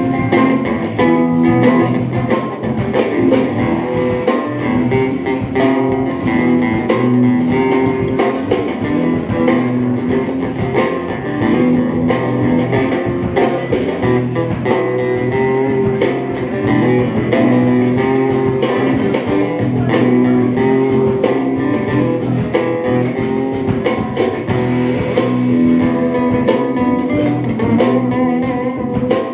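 Live band playing an instrumental, blues-tinged passage: guitar leads over bass, with a steady beat of evenly repeating hits and no singing.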